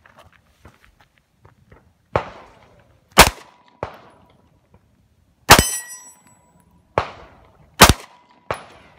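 A string of single handgun shots at an AR500 steel target, with several sharp reports about a second apart. After the loudest of them the steel plate rings on in a steady, bell-like tone for a fraction of a second.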